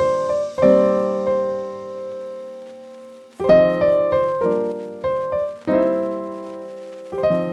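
Background piano music: slow chords, each struck and left to ring out before the next.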